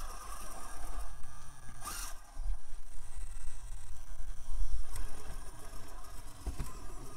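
Axial SCX24 micro RC crawler's brushless motor and drivetrain running at crawling speed as it climbs, its tyres scraping over the rock, with a sharp scrape about two seconds in.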